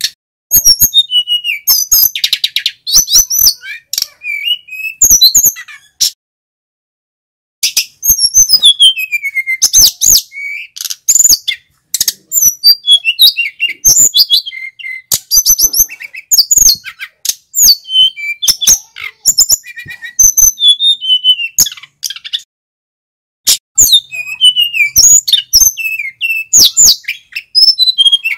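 A male sikatan gunung flycatcher singing in full voice: fast runs of high chirps, trills and sweeping whistled notes, broken by two short pauses, about six seconds in and again about twenty-two seconds in.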